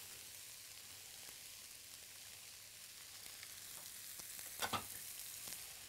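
Aromatics and vegetables sizzling steadily in hot oil in a pan during a stir-fry. About three-quarters of the way through there is a brief knock.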